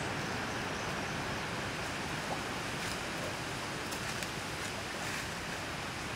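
Steady rush of flowing stream water, with a few faint small splashes and clicks in the second half.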